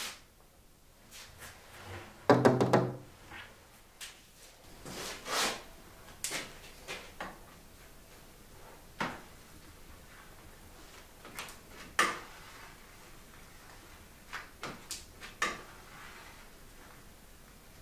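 Scattered knocks, clicks and brief rubbing sounds of objects being handled. The loudest is a longer, heavier bump about two seconds in, with a sharper knock a little past the middle.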